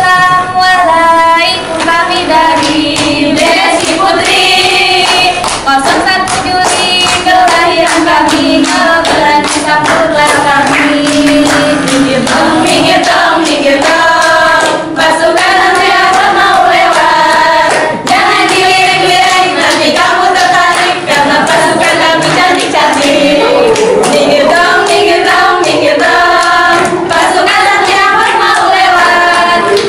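A group of girls singing an Indonesian yel-yel cheer song in unison, with hand claps and slaps keeping time throughout.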